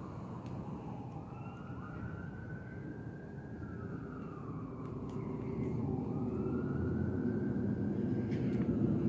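Distant emergency-vehicle siren on a slow wail, its pitch sliding down and back up about every four seconds. A low rumble underneath grows louder over the second half.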